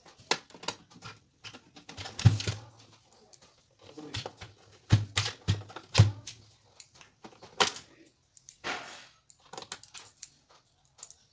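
Clicks and knocks from handling the plastic case of a Philco portable CD boombox while its last screws are fitted with a screwdriver, with a few heavier thumps about two seconds in and around five to six seconds in, and a brief rubbing noise near the end.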